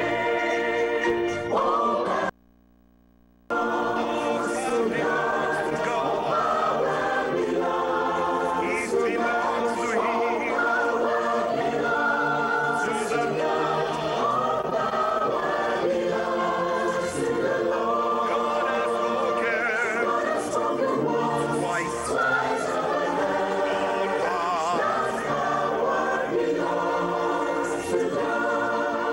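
Mixed choir of men and women singing a gospel hymn, many separately recorded voices mixed together. The sound cuts out completely for about a second, about two seconds in.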